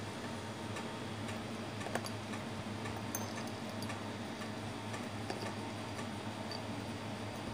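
Light, irregular clicks and taps as a cat noses among cardboard food boxes, over a steady low hum.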